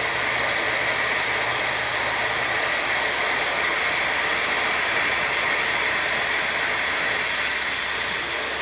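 Vacuum cleaner running steadily, its suction drawing water from a refrigerator drip pan up through drinking straws into a plastic bottle. It makes a constant rushing hiss, with a faint low hum that fades out about two and a half seconds in.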